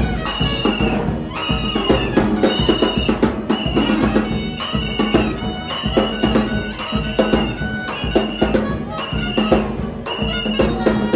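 Live New Orleans-style brass band playing: sousaphone bass, horns and drums, with a short high note repeating about once a second over a steady low note.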